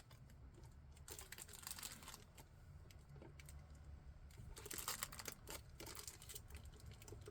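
Faint clicking and clacking from a YUNZII QL75 mechanical keyboard (linear switches) being handled, its keys tapped, in two short flurries: about a second in and again around the middle.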